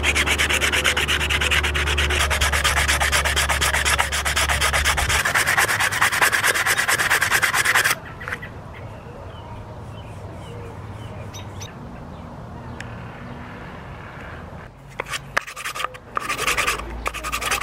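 Hand sanding of a pine push stick with a small sandpaper-wrapped sanding block, fast back-and-forth strokes of paper rubbing on wood. The sanding stops about halfway through and the sound goes much quieter for several seconds, then a short run of strokes comes back near the end.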